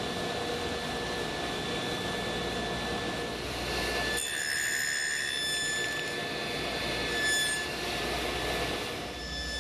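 Table saw running with its blade cutting tenon cheeks in oak stock clamped in a tenoning jig: a steady high whine over a low hum. About four seconds in the low hum drops away and the whine brightens, and the hum returns near the end.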